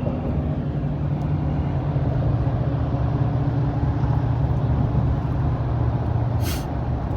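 Steady low drone of a car's road and engine noise at freeway speed, heard from inside the car. A brief hiss comes about six and a half seconds in.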